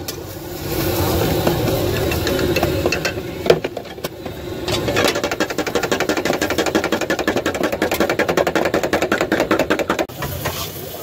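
Metal spatula tapping and scraping on a flat steel griddle among toasting buns, a fast even clatter from about five seconds in that stops near the end.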